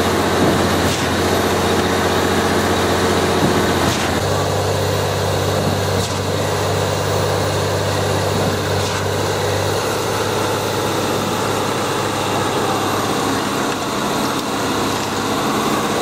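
An engine running steadily, its note shifting about four seconds in and again about ten seconds in.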